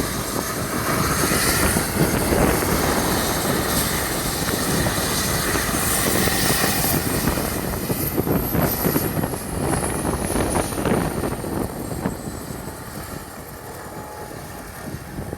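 Helicopter rotor and turbine running loud, with a thin high whine that slowly falls in pitch during the second half; the sound eases off from about twelve seconds in.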